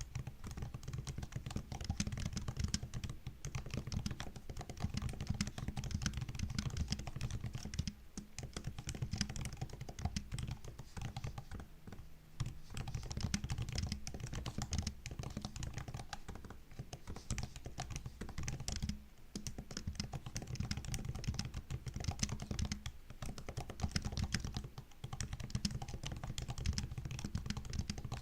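Continuous fast typing on a MacBook's low-profile laptop keyboard, a dense run of soft key clicks with brief pauses about eight, twelve and nineteen seconds in, over a steady low hum.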